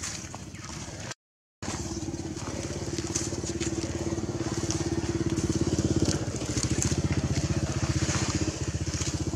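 An engine running with a rapid, even pulsing beat. It comes in after a brief break in the sound a little over a second in and gets louder from about three seconds on.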